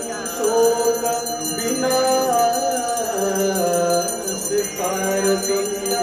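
Devotional aarti singing, a voice holding long gliding notes, over the steady jingling of small hand bells.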